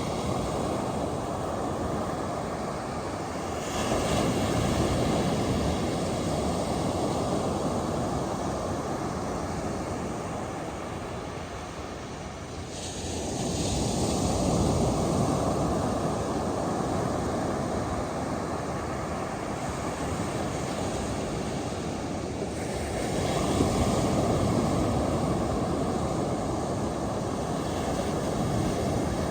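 Ocean surf breaking on a beach, a steady rush that swells about every ten seconds as each set of waves comes in.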